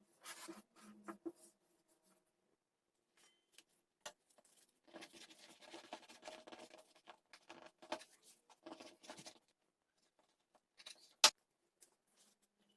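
Faint rustling, scraping and light tapping from hands working with food and utensils, in short clusters, with one sharp click near the end.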